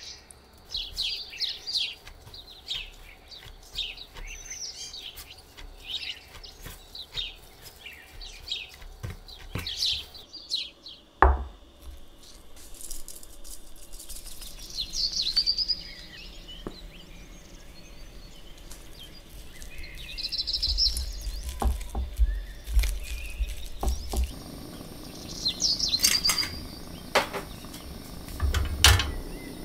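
Small birds chirping and tweeting in the background, with scattered kitchen handling sounds: a sharp knock about eleven seconds in and a few low thuds a little after twenty seconds.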